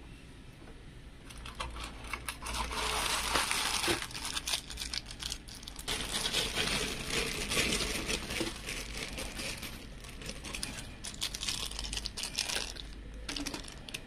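Clear plastic accessory bag crinkling and rustling as hands rummage through it. It starts about a second in and goes on in dense crackles, with small sharp clicks from the screws and parts inside.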